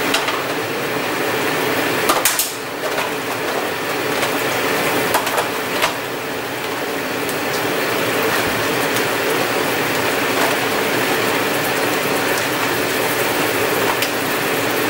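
King crab legs sizzling in a wok of hot butter and garlic, a steady frying hiss. A few sharp clicks of metal tongs against the crab and the pan come now and then.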